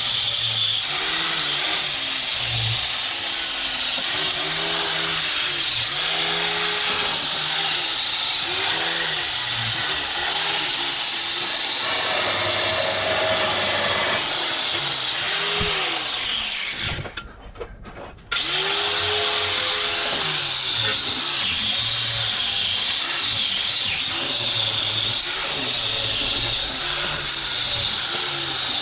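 Angle grinder cutting steel bar stock, a continuous harsh grinding hiss. The motor's pitch sags under load and recovers again and again. The cutting breaks off briefly about two-thirds of the way through, then resumes.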